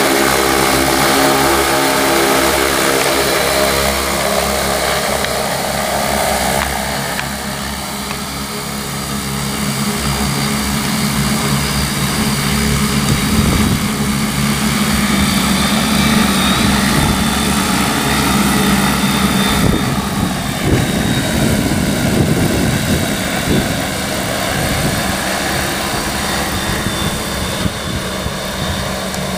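Large six-rotor agricultural spray drone with 75 cm propellers hovering, its rotors making a loud, steady buzzing drone. The pitch of the rotor tones shifts a couple of times as the motors adjust, with a gusty low rumble in the middle stretch.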